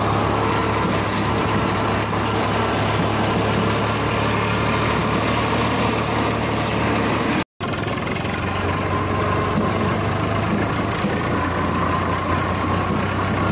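Swaraj 855 tractor's diesel engine running steadily while driving, heard from the driver's seat. The sound drops out for an instant about halfway through.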